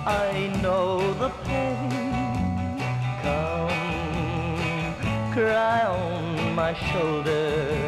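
1960s pop ballad played from a 45 rpm single, in a break without sung words: a lead melody with a strong wavering vibrato over bass notes and a steady drum beat.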